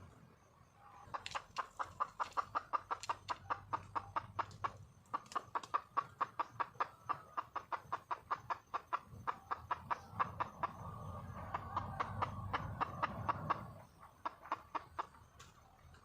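Red junglefowl hen clucking in a long, fast series of short clucks, about five or six a second, with a brief pause about five seconds in: a wild hen calling for a mate.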